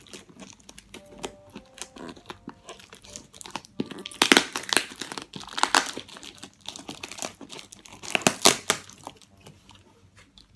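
Packaging being handled and opened by hand: crinkling and rustling with some tearing, loudest in two bursts, about four seconds in and again about eight seconds in.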